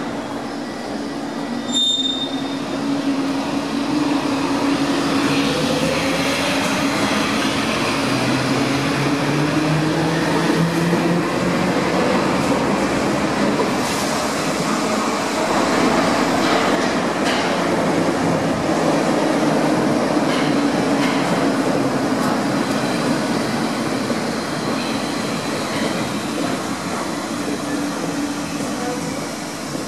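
Munich U-Bahn A-type train pulling out of an underground station, its traction motors whining up in pitch as it gathers speed over a steady rumble of wheels on rail, with some wheel squeal, echoing in the tiled station. A short high beep sounds about two seconds in.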